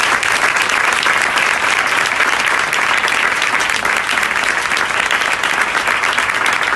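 Audience applauding steadily, a dense clapping of many hands at the end of an acceptance speech.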